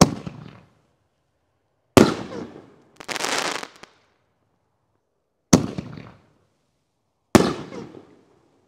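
Black Cat Neon Diablo consumer canister shells fired from a mortar tube: four sharp bangs with echoing tails, heard as a launch and then, about two seconds later, the shell breaking in the air, twice over. A short hiss follows the first break.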